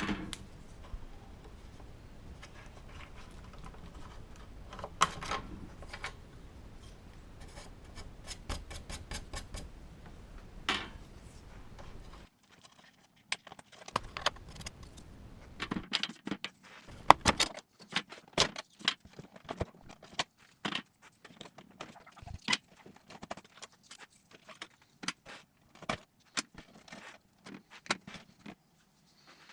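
Small metal parts and hand tools being handled: irregular light clicks and clinks, with a faint low hum underneath for about the first twelve seconds that then stops.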